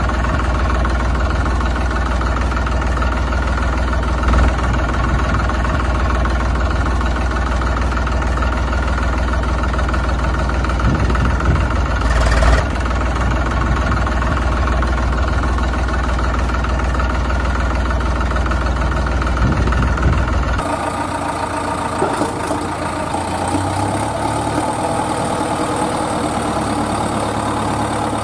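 Engine idling steadily with a deep low drone. A brief loud noise comes near the middle, and about two-thirds of the way through the sound changes abruptly to a lighter engine drone with less deep bass.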